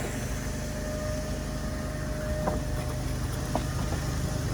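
Band sawmill's engine idling steadily, with a couple of light knocks about two and a half and three and a half seconds in.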